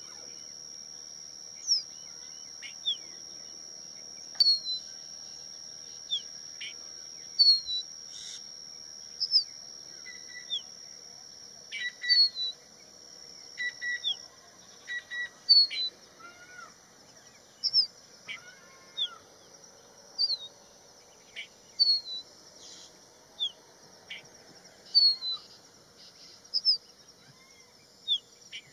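Crested bunting calling: short, sharp high chirps repeated every second or two, with a few lower notes in between. A steady high whine in the background fades out about halfway through.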